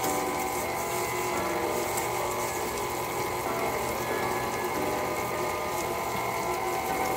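KitchenAid stand mixer running steadily with its paddle attachment, mixing crumbly seasoned goat's-milk cheese in the steel bowl: an even motor whine of several steady tones.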